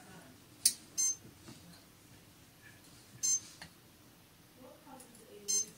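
A short, high-pitched chirp repeating about every two seconds, three times, with a couple of light clicks in between.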